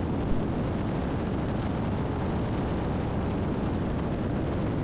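Christen Eagle biplane's engine and propeller heard from inside the cockpit in flight: a steady, even drone mixed with airflow noise, with no change in power.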